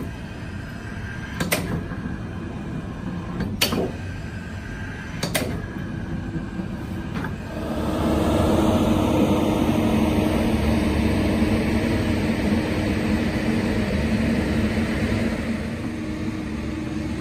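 Steady engine hum with three sharp clicks about two seconds apart. A little past halfway the engine turns louder and fuller and runs steadily with a low drone.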